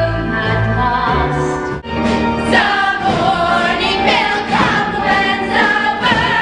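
Musical theatre number: a group of voices singing over instrumental accompaniment, with a brief break in the music just under two seconds in.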